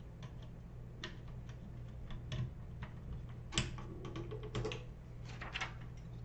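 Irregular small plastic clicks and handling knocks as a CryptoPay card reader's cable is plugged into a vending machine's control board, the loudest click about three and a half seconds in, over a low steady hum.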